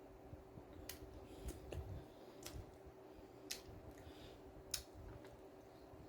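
Faint, sparse clicks of someone eating a taco salad at close range, about six spread over several seconds with a few soft low knocks, over a faint steady hum.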